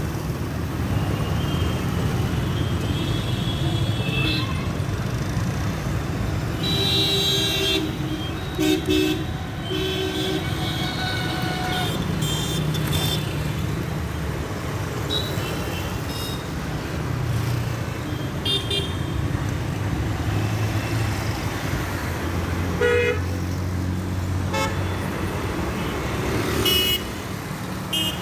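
Busy road traffic: a steady rumble of engines and tyres, with many short horn toots from different vehicles at different pitches, some in quick clusters.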